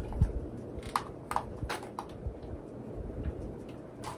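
Scattered light clicks and taps of a hard plastic toy part being handled and worked at by hand, over a faint low room hum.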